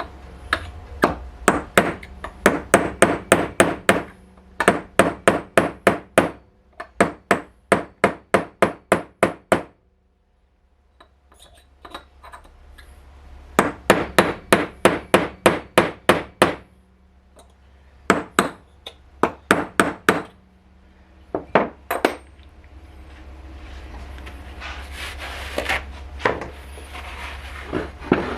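Hammer blows on metal, struck in quick runs of about three or four a second with short pauses between runs, fewer and lighter near the end.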